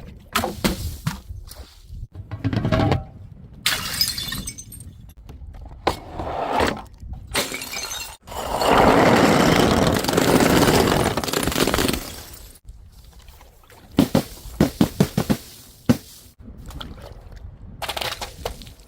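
Glass bottles smashing and shattering, heard as a string of separate crashes and impacts. Just before the middle comes a few seconds of continuous loud crashing, and later a quick run of sharp knocks.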